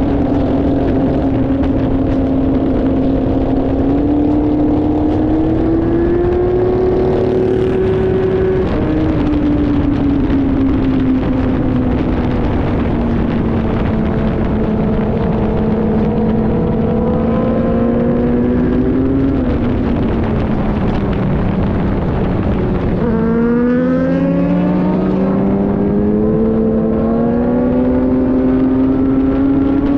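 Motorcycle engine running at road speed under wind and road rush, its pitch following the throttle. It climbs a few seconds in, drops suddenly about nine seconds in, sags slowly through the middle, dips lower past twenty seconds, then rises again in steps near the end.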